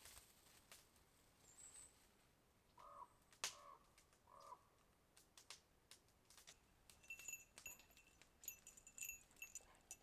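Quiet woods at near silence, broken by faint bird calls: three short, low calls a few seconds in, then a run of thin, high chirps in the second half, with a few faint clicks and ticks.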